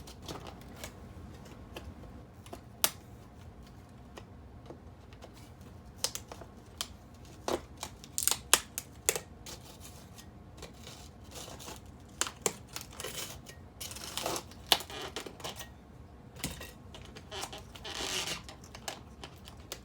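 Hand tools working on model railroad track: irregular sharp clicks and snaps of rail being cut and track nails being pulled, with a few short noisy rubbing stretches.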